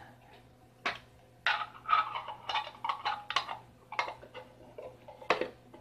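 Hard plastic electronics project box handled and turned over in the hands: irregular light clicks, knocks and rattles of the case and its lid.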